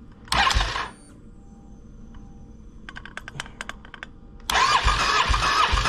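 Starter motor cranking a Can-Am Renegade's V-twin engine with the spark plugs out, turning it over for a compression test on the rear cylinder. The cranking starts about four and a half seconds in and runs steadily with about three low pulses a second. Before it come a short rushing noise and a few sharp clicks.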